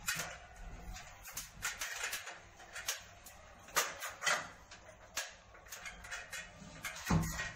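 Scattered clicks, knocks and rustles, several a second and uneven, from hands handling pipes, cables and fittings in a ceiling opening during a split air conditioner installation.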